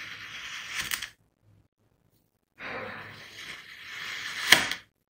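Knife blade slicing down through kinetic sand twice, with a gritty rasping hiss each time. The first cut ends about a second in; the second starts midway and finishes with a sharp click, the loudest sound.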